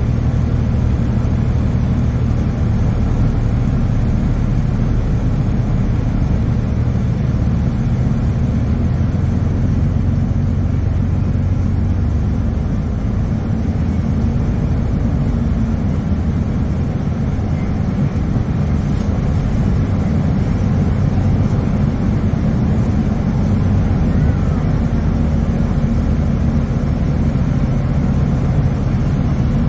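Steady low drone heard inside the cabin of a 2009 NABI 40-LFW hybrid transit bus: its Cummins ISB 6.7-litre diesel and Allison EP40 hybrid drive running, mixed with road noise.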